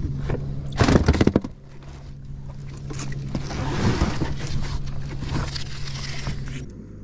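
A boat motor hums steadily and cuts off near the end. About a second in, a loud flurry of knocks and thumps comes from handling on the deck.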